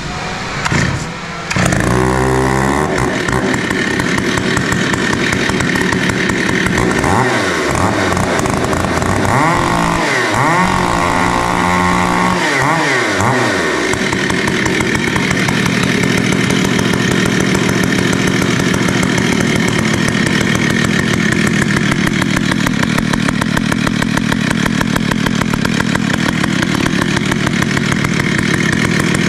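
Stihl MS 880 two-stroke chainsaw with an opened-up muffler, pull-started and catching about two seconds in. It is revved up and down several times, then runs on steadily.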